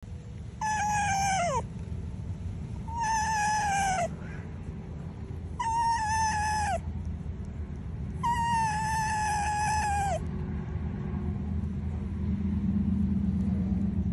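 A red fox giving four long, high whines, each about a second, holding pitch and then dropping at the end: happy sounds while being scratched. A low steady rumble runs underneath.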